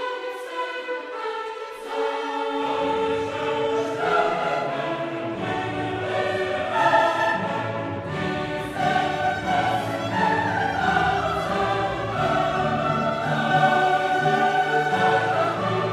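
Background music in a choral, orchestral style, with sustained singing voices; a deeper bass part comes in about two and a half seconds in.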